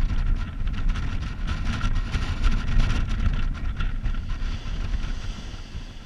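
Wind buffeting the microphone with a heavy, uneven low rumble, over the hiss of surf breaking on the shore.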